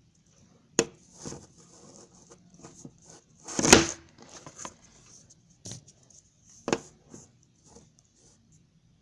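Hands working slime: scattered sticky tearing and crinkling noises, with a sharp click about a second in, another near the end, and a louder burst in the middle.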